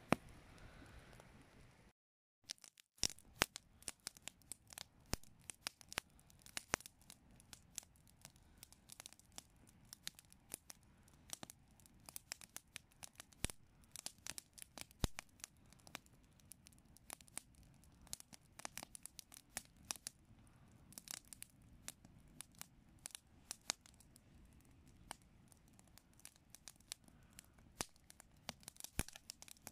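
Wood campfire of logs and dead branches crackling, with sharp irregular pops and snaps several times a second.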